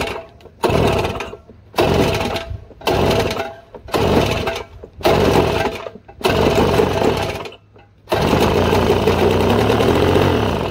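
Snowblower's two-stroke engine, running without a carburetor on fuel and two-stroke oil poured straight into the crankcase, fires in short bursts about once a second over several tries. It then catches and runs for about two and a half seconds, its pitch rising slightly before it cuts out at the end.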